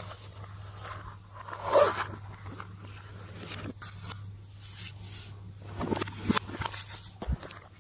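Slime being mixed and squished by hand, giving irregular sticky crackles, clicks and scrapes, loudest about two seconds in, over a faint steady low hum.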